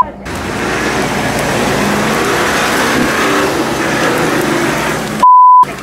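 Nissan Patrol 4x4's engine running under load as it crawls through thick undergrowth, over a loud steady rush of noise. Near the end, a short loud censor bleep.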